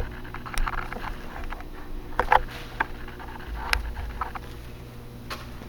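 Scattered light clicks and taps at irregular intervals, over a faint steady hum.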